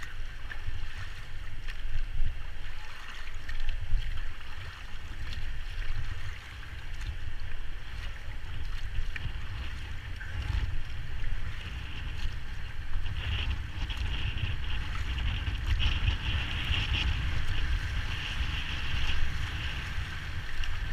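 Rushing river water with wind buffeting the microphone; the water's hiss swells for a few seconds past the middle.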